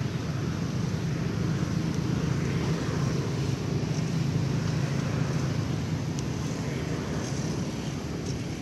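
Steady low outdoor rumble with a few faint, short high ticks.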